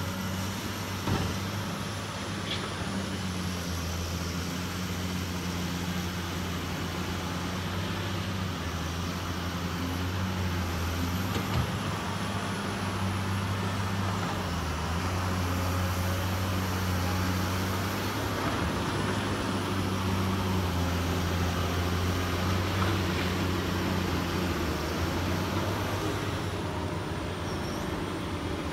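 Caterpillar tracked excavator's diesel engine running steadily, swelling and easing in long stretches as it works, with a thin high whine that slowly rises and falls and a few faint knocks.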